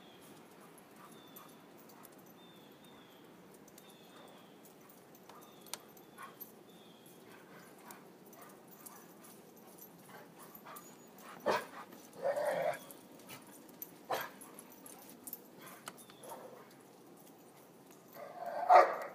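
A dog barking a few times in the second half. Some barks are short and sharp, some longer, and the loudest comes near the end.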